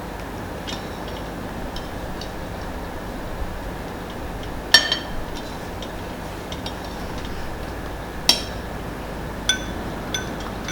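A spoon clinking against a glass as Eton mess mixture is spooned into it, in scattered light clinks that ring briefly. The loudest clinks come about halfway and about three-quarters through, over a steady background hiss.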